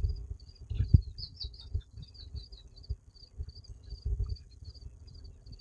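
Insects chirping steadily in the grass, a high, evenly repeated chirp about three to four times a second. Irregular low thumps and rumbles, loudest about a second in and again near four seconds, come and go underneath.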